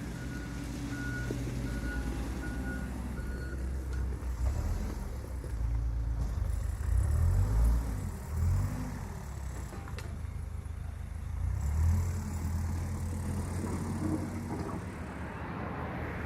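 Heavy construction vehicle's diesel engine running, its reversing alarm beeping steadily for the first few seconds; the engine rises and falls in pitch a few times around the middle as it works.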